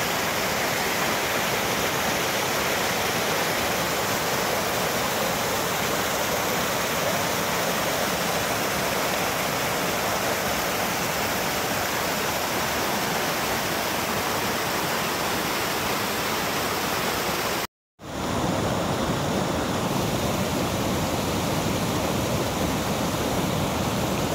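Mountain waterfall rushing over boulders: a steady, loud wash of whitewater. About three-quarters of the way through it cuts out for a moment and comes back deeper and fuller.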